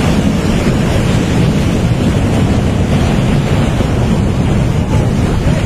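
Flash flood of muddy water and boulders rushing down the valley: a loud, steady, deep rushing noise with no let-up.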